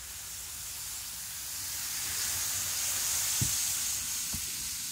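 N-gauge model train running on its track: a steady rushing hiss that grows louder towards the middle and then eases off, with two soft knocks in the second half.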